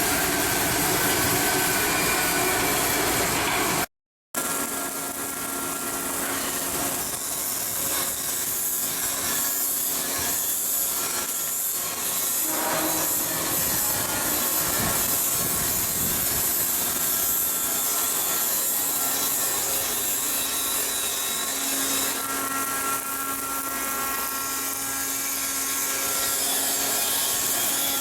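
Shipyard work noise. A low rumble gives way, after a short break about four seconds in, to a steady rasping hiss of tools at work with a faint steady hum beneath.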